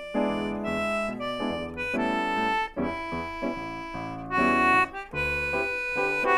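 Instrumental background music: a melody of clear held notes changing every fraction of a second over a low bass line.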